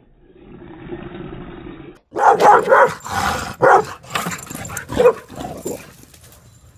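Dog growling low for about two seconds, then a quick run of loud barks and yips for about four seconds before it fades.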